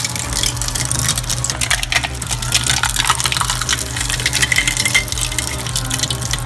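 A heavy shredding or crushing machine running with a steady low hum under a dense, continuous rattle and crackle of material being broken up.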